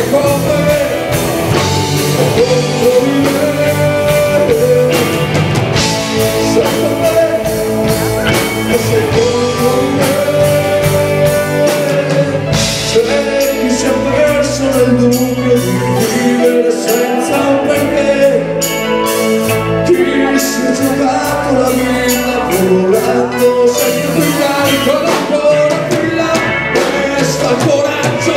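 Live rock band playing on a stage: drum kit, electric guitars, bass and keyboard, amplified through a PA.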